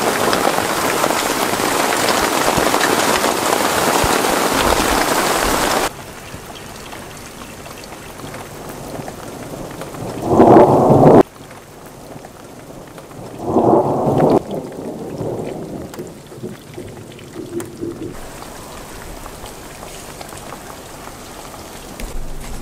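Heavy rain mixed with small hail pelting down, loud and dense for about six seconds, then cutting abruptly to softer steady rain. Two loud claps of thunder break over the rain, about ten and thirteen and a half seconds in; the first stops suddenly.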